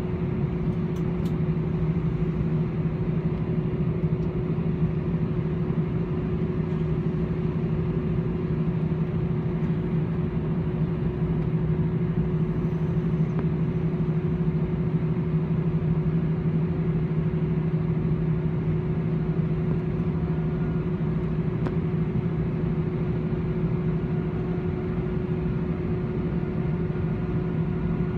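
Airbus A318's CFM56 turbofan engines running at low power while the aircraft taxis, heard inside the cabin beside the engine: a steady hum with two held tones over an even rush of air.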